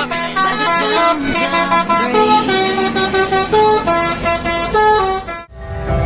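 Multi-tone 'telolet' bus air horn playing a quick tune of stepping notes. It cuts off suddenly about five and a half seconds in.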